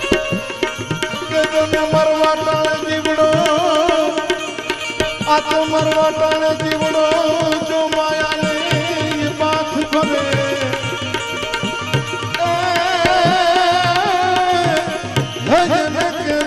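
A man singing Gujarati duha-chhand devotional verse in long held notes with a wavering pitch, accompanied by harmonium and drum strokes.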